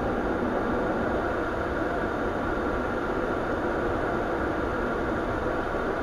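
Steady hum and rush of machinery inside a Bombardier Q400 turboprop's cockpit during pushback by a tug, with no change in level.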